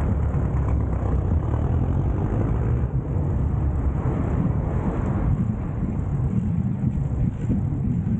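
Steady wind rumble and road noise on an action camera riding along on a road bicycle, a deep, even din with no distinct events.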